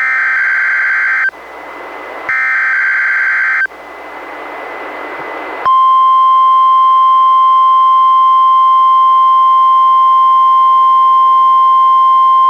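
NOAA Weather Radio alert signal heard through a Reecom R-1630 weather radio: two SAME digital header bursts, each about a second long, with radio hiss between them. About six seconds in, the steady 1050 Hz warning alarm tone starts and holds, sent here as the required weekly test of the receivers' alarm.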